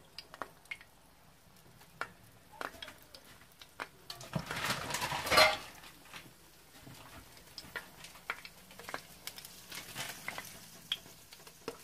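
Egg rolls shallow-frying in hot oil in a pan: scattered crackles and pops, with a louder burst of sizzling about five seconds in.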